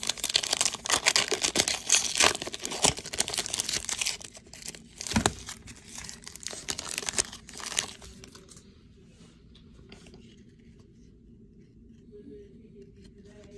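Wrapper of a baseball card pack being torn open and crinkled by hand, for about eight seconds. It then goes quiet apart from a faint low hum and a few light clicks as the cards are handled.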